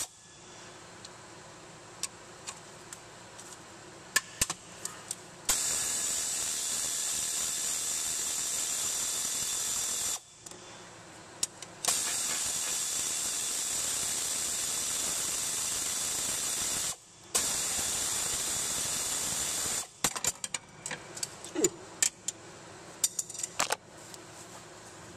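Pneumatic air tool on a long extension and 12 mm socket, hissing in three long runs that start and stop sharply as it spins out the bolts of a Hyundai 2.7L V6's timing-belt tensioner. Near the end come scattered metal clicks and clinks as the loosened bolts and tensioner are handled.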